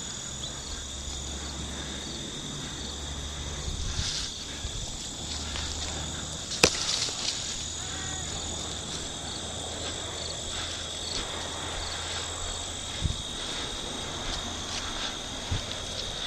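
Insects trilling steadily in a high, even tone over a low rumble, with one sharp click about six and a half seconds in.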